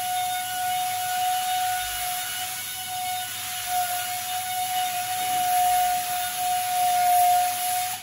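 Compressed-air paint spray gun hissing steadily while spraying a truck body, with a steady whistling tone over the hiss.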